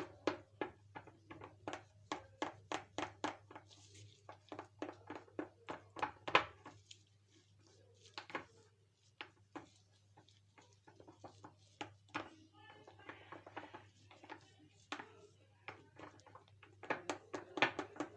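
Wooden spoon stirring mashed banana and honey in a bowl, knocking against the bowl about three times a second, slowing and fading in the middle and picking up again near the end, over a low steady hum.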